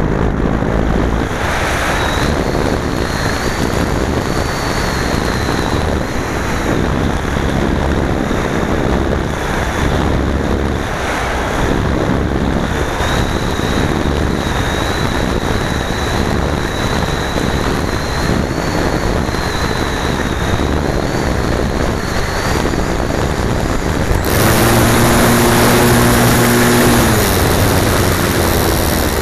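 Airflow rushing over the onboard keyfob camera of an unpowered ST Fox radio-controlled glider in flight, a steady wind noise with a faint, wavering high whistle. About 24 seconds in, the rush grows louder and a steady low hum joins it for about three seconds.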